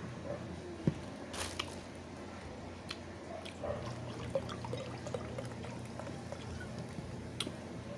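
Drink poured from a glass bottle, with a few light clicks and knocks of glass and dishes on a table.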